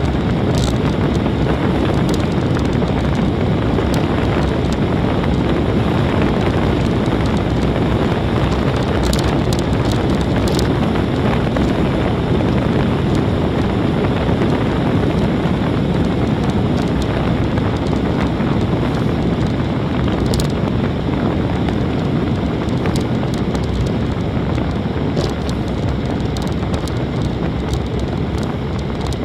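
Wind rushing over a bike-mounted camera's microphone on a fast road-bike descent, with a steady roar of tyres on coarse bitumen. A few short clicks and knocks come as the bike goes over bumps, and the rush eases slightly near the end.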